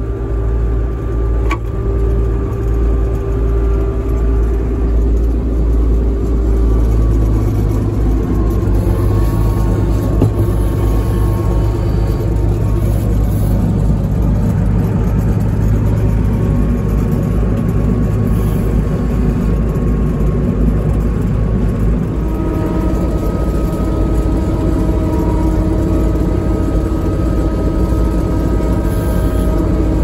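Massey Ferguson 860 combine's engine running steadily, heard from inside the cab. Its note changes about a quarter of the way in, and a higher whine joins about three quarters of the way through.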